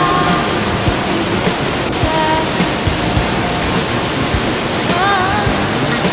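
Rocky rainforest stream rushing over boulders: a steady, loud wash of water. A few held, wavering melodic tones sound over it near the start, about two seconds in and about five seconds in.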